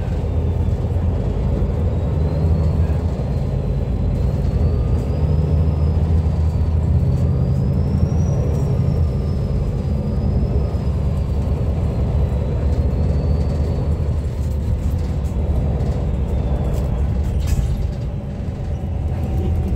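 The six-cylinder diesel engine of a MAN NL323F city bus running as the bus drives, its low drone swelling and easing with throttle. A thin high whine rises and falls over it. A sharp click comes about seventeen seconds in, after which the sound drops a little.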